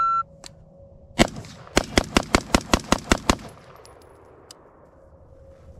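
An electronic shot timer beeps once to start, then an AR-15 rifle fires ten rounds: a single shot about a second later, then nine more in rapid fire at about six a second, the last some three and a quarter seconds after the beep.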